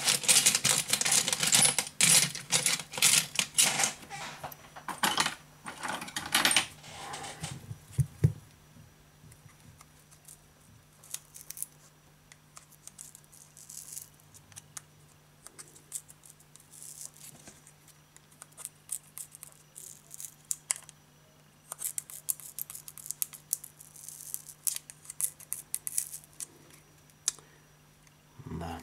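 Scratching, crackling handling noise from fingers and a tool working at a smartphone's glued-in battery. It comes in dense runs of small clicks, one over the first seven seconds or so and another about 22 to 26 seconds in, with scattered clicks between.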